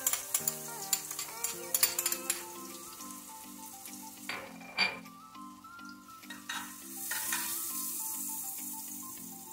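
Chopped garlic sizzling in hot olive oil in an aluminium pot. A spoon clicks against a small saucer as the garlic is scraped in during the first couple of seconds. The sizzle swells near the end as the garlic is stirred, over soft background music.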